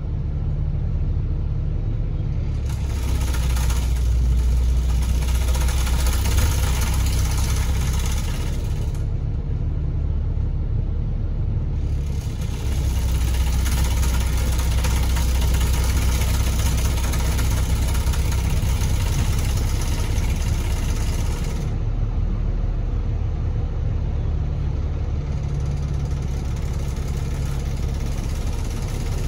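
Diesel engine and road noise of a KMB Alexander Dennis Enviro500 double-decker bus heard inside the passenger cabin. The engine note steps up and down as the bus accelerates, changes gear and eases off, and a road hiss swells twice as it gathers speed, then fades.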